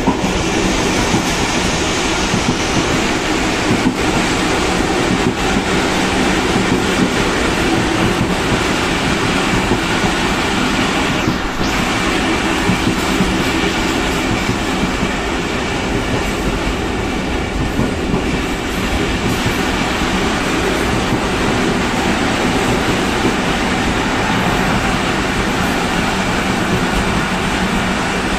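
PHA-20 diesel locomotive running at speed: a steady engine drone under wheel-on-rail clatter and running noise, unbroken throughout.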